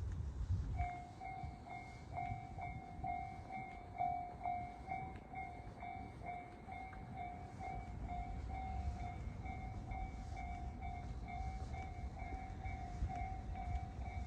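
Japanese railway level-crossing warning alarm ringing its repeated electronic 'kan-kan' ding, about two dings a second, starting about a second in, over a low rumble.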